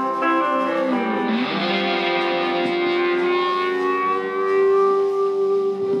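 Live rock band's guitars and bass playing the song's closing bars without vocals: notes slide down about a second in, then a single chord is held and rings out as the song ends.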